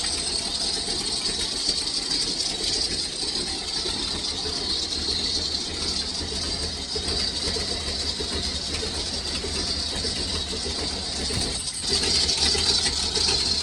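Hot rod engine running, with a steady high-pitched scream from the air conditioning compressor over it.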